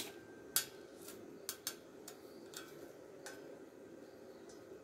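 Seven or so sharp clicks and light taps at irregular intervals, some with a brief metallic ring, over a steady low hum.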